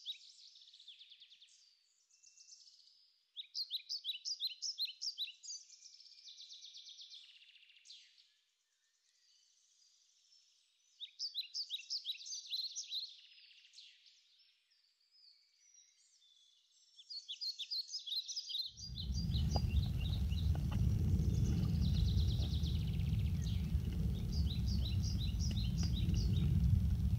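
A songbird sings short phrases of rapid, high repeated notes, several times with pauses between. About two-thirds of the way through, a loud, steady low rumble of wind buffeting the microphone suddenly sets in and covers the birdsong, which carries on faintly above it.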